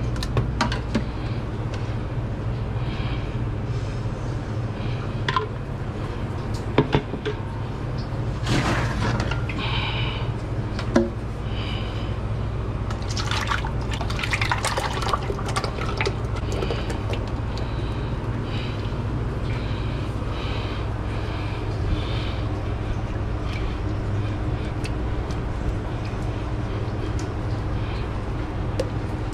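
Liquid being poured or filling a container, over a steady low mechanical hum, with scattered knocks and clatter of kitchen work.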